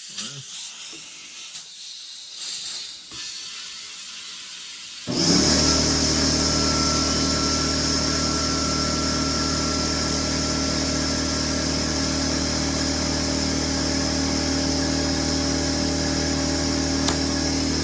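An air compressor starts about five seconds in and runs steadily with a motor hum and hiss, inflating a freshly plugged tire that reads only about 10 PSI. Before it starts there is only faint handling noise.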